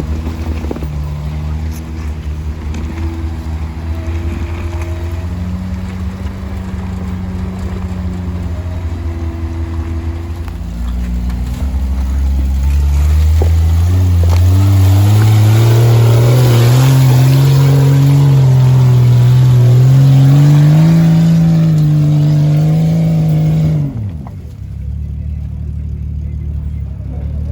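Four-wheel-drive truck engine running steadily, then revving up under load, its pitch climbing over several seconds and holding high before dropping away abruptly near the end to a lower steady running sound.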